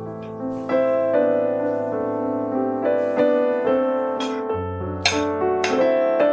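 Background piano music: a gentle melody over sustained chords, with the notes changing about once a second.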